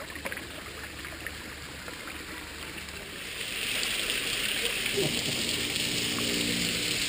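Water from a small waterfall splashing down onto rocks, a steady hiss that grows louder about three seconds in.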